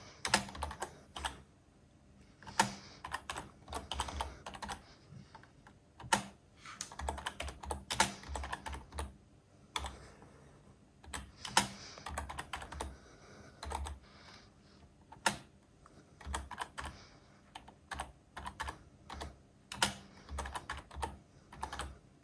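Typing on a computer keyboard: irregular runs of key clicks with short pauses between them, as a terminal command is typed out.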